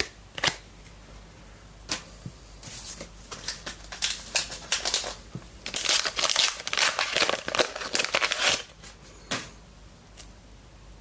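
Trading cards being handled and flicked through by hand: a run of quick clicks, flicks and rustles, busiest from about three to nine seconds in.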